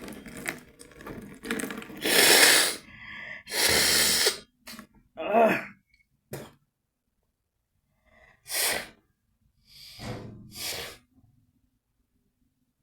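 A person doing a saline nasal wash, clearing the nose with a series of hard breathy blasts, snorts and gasps. The salt water and mucus are being forced out. There are about six bursts, the two loudest in the first half.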